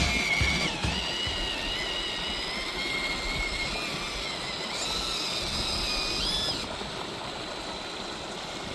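Small electric motor and gears of a 1/24-scale RC crawler whining, the pitch stepping up and down with the throttle for about six and a half seconds, over the steady rush of a creek.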